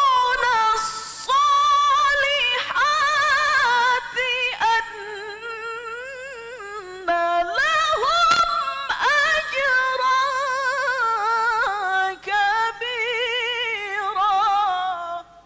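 A solo voice chanting Qur'an recitation (tilawah) in long melismatic phrases, with quavering ornaments on held notes and brief pauses for breath. It stops abruptly near the end.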